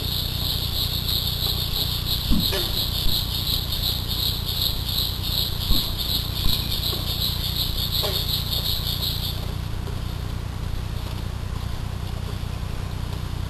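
An insect chorus trills steadily in a high, rapidly pulsing band, then stops about nine seconds in, over a constant low hum. A few faint short clicks come and go.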